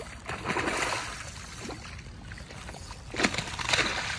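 A hooked fish splashing and thrashing at the water's surface while being fought in on a rod: one burst of splashing about half a second in, then a second, louder one near the end that starts with a sharp slap.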